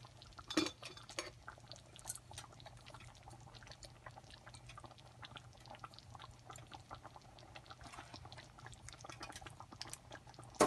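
A steel ladle scooping a runny sesame-jaggery rice sweet from a steel pan and pouring it into a bowl: faint pouring and dripping with many small scrapes and clicks. One sharper metallic clink about half a second in.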